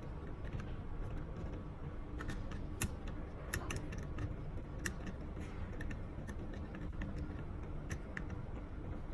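Scattered light clicks and taps from handling the wires and the terminals of a smart dimmer switch while the hot wire is connected to the L terminal. They are irregular, bunched about two seconds in and again near the end, over a low steady hum.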